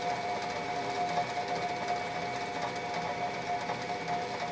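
Bench metal lathe running with a steady whine while the tool is fed by hand on the top slide to turn a shallow taper in steel.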